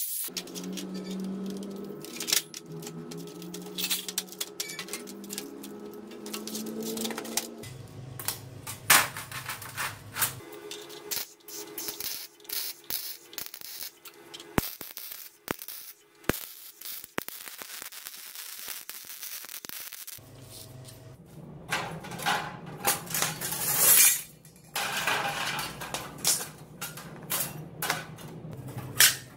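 Background music with sharp metallic clinks as loose steel sheets are handled and knocked against each other.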